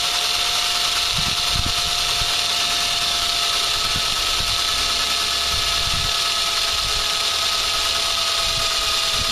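Cordless drill running steadily with a constant whine, its bit grinding into the swing set's metal frame without cutting well: a cheap Harbor Freight bit.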